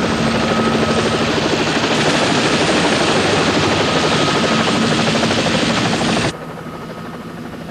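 Helicopter rotor and engine running loud and close, a fast steady chop over a constant hum, cutting off abruptly about six seconds in and leaving a quieter background rumble.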